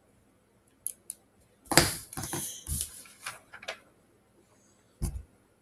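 Irregular scratching strokes and light taps of a drawing tool on paper, in a cluster through the middle and once more near the end.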